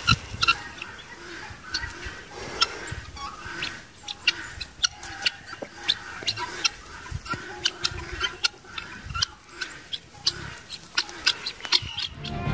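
Birds calling: many short, sharp chirps coming irregularly, several a second.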